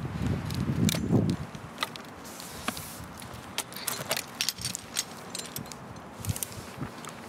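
Metal carabiners and climbing hardware on a tree climber's harness clinking and jangling in a string of short, sharp clicks, after a low rumble in the first second or so.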